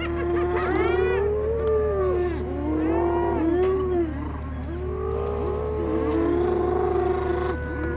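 Several long, wavering animal yowls overlapping almost without pause, each sliding up and down in pitch, over a steady low hum.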